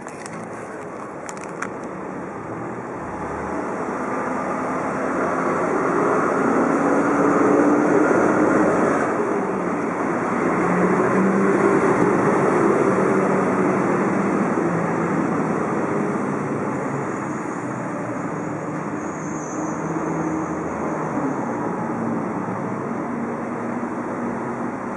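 Large vacuum cleaner running with a steady, noisy suction sound. It grows louder over the first several seconds, and its low note shifts up and down as it runs.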